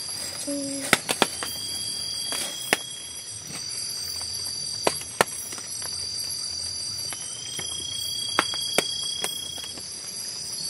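Night insects calling in long, steady, high-pitched trills, several overlapping and starting one after another, over a steady hiss. Scattered sharp ticks and knocks are heard among them.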